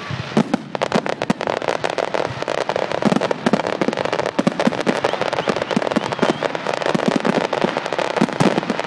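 Fireworks display: a dense, rapid crackling of many small sharp pops that keeps up without a break.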